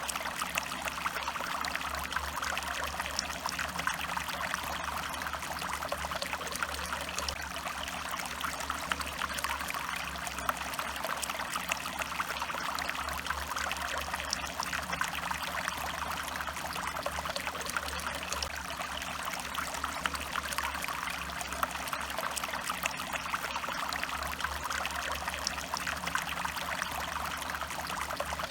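Stream water trickling and splashing steadily over stones, an even rushing with many small droplet splashes.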